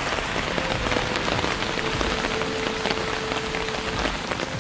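Steady heavy rain falling, with many separate drops ticking close by on lotus leaves.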